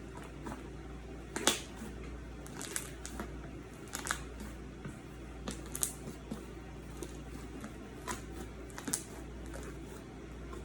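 Slime being squeezed and worked by hand, giving irregular sharp clicks and pops as the air bubbles trapped in it burst.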